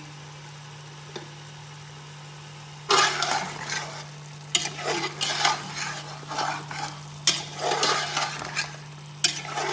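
Mutton and freshly added spices frying in hot oil in a pot: a faint steady sizzle, then about three seconds in a spoon starts stirring and scraping through it, knocking sharply against the pot a couple of times. This is the bhunai stage, the meat and spices being fried together in oil.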